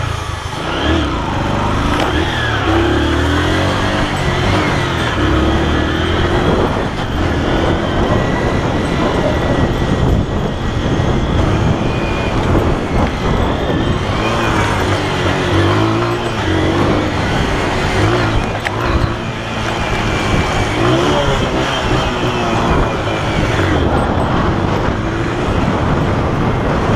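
Honda CG 125's single-cylinder four-stroke engine running under way, its revs rising and falling again and again as it accelerates and changes gear, over steady wind and road noise.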